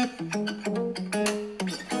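Guitar playing a quick run of plucked notes.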